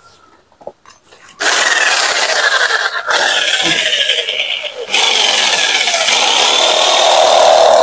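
Modern M-2200L jigsaw sawing through a wooden board with a new blade that has just been hand-filed to sharpen it. It starts about a second and a half in after a few light clicks, eases briefly in the middle, then cuts on steadily.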